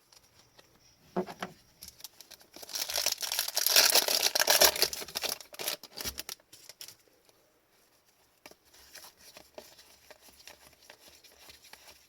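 Foil wrapper of a trading-card pack being torn open and crinkled, loudest for a few seconds after a brief rustle, then light clicks and rustles of cards being handled.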